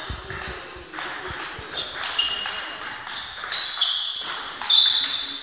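Table tennis ball in a rally: a series of sharp clicks as it is struck by the bats and bounces on the table, a second or less apart.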